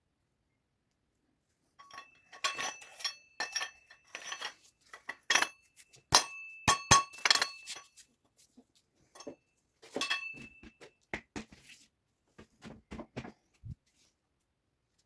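Metal parts and tools clinking and clanking. The hard knocks ring on briefly at a fixed pitch, in a busy run after a couple of seconds of silence, with a shorter cluster and a few duller knocks later.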